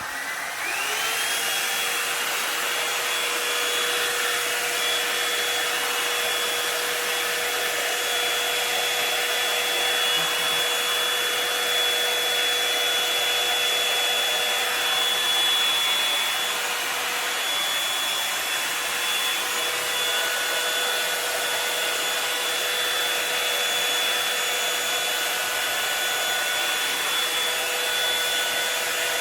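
Revlon One-Step hair dryer brush switched on, its motor whine rising to speed within the first second, then running steadily with a very loud rush of air; a second, lower whine joins about two-thirds of the way through.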